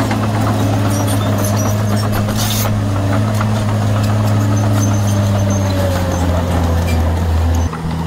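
Small Komatsu crawler bulldozer's diesel engine running steadily under load as it pushes dirt, with scattered metallic clanks. Near the end the engine note drops suddenly to a lower pitch.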